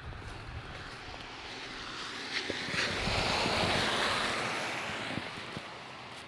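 A car driving past, its tyre and road noise swelling to a peak about halfway through and then fading away, with faint footsteps underneath.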